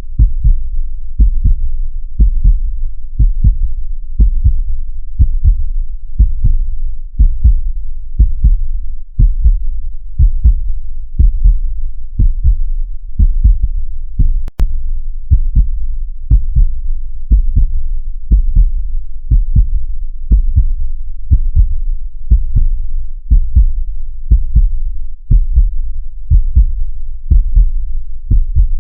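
Heartbeat sound: a steady, even run of low thumps, about two a second, with a brief dip and a sharp click about halfway through.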